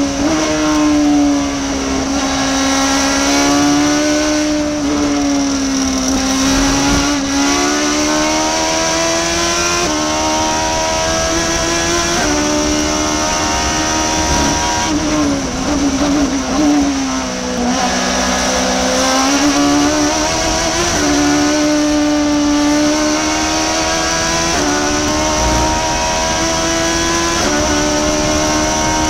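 Radical RXC Spyder V8 race car's engine heard from the cockpit at speed, pulling hard with quick upshifts. Its pitch falls twice as the car brakes into corners, about a fifth of the way in and again just past halfway, then rises again under acceleration.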